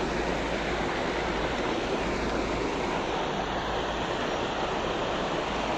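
Wind on the microphone: a steady rushing hiss with a low rumble underneath.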